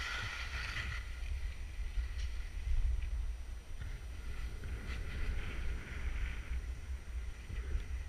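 Wind rumbling on the microphone of a skier descending fast, with the hiss of skis sliding over snow, swelling near the start and again about five to six seconds in.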